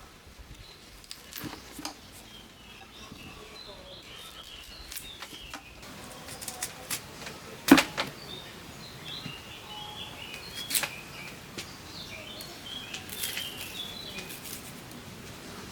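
Small birds chirping, with a few sharp clicks or snaps. The loudest snap comes about eight seconds in, and another about eleven seconds in.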